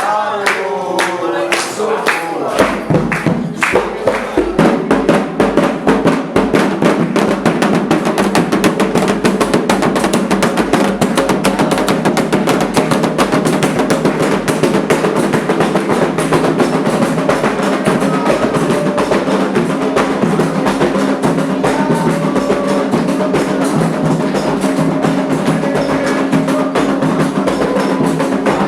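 Candomblé ritual drumming on atabaque hand drums, fast and dense, with voices singing over it from about four seconds in.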